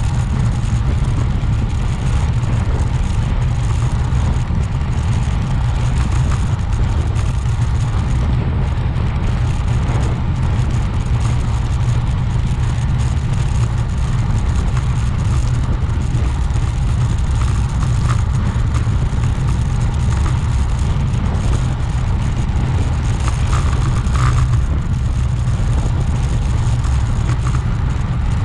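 Steady low rumble of wind rushing over the microphone of a bike-mounted camera while riding a road bike at speed, with a faint hiss of tyres and air over it.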